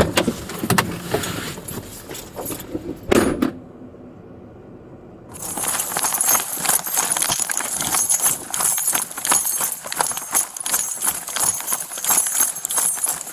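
Rapid running footfalls with rattling and jangling of gear, picked up close on a body-worn microphone, starting about five seconds in after a few scattered knocks.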